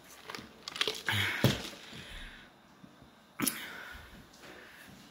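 A few knocks and clicks in a room: a cluster about a second in, the loudest near a second and a half, and a single sharp click about three and a half seconds in.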